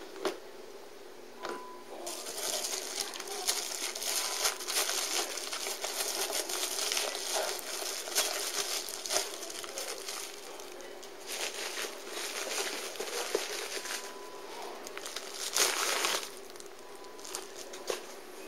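Clear plastic bag crinkling and rustling as packaging is handled and pulled out of a cardboard box, in irregular bursts with short pauses over about fourteen seconds, the loudest burst near the end.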